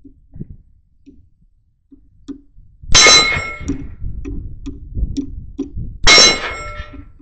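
Two .223 rifle rounds striking hanging steel plates at 100 yards, about three seconds apart. Each hit is a loud metallic clang that rings on for about a second.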